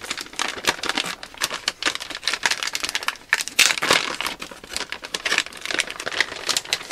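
Metallized anti-static bag crinkling as it is handled by hand: a continuous run of irregular, crisp crackles.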